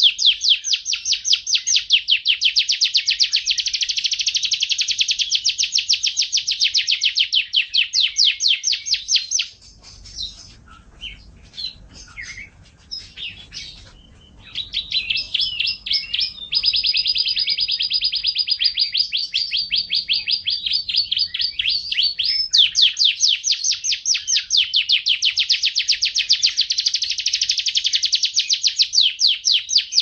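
Domestic canary singing: long, very fast trills of repeated high notes, which break off about ten seconds in for a few seconds of scattered chirps, then resume with a held buzzy trill and more rapid trilling.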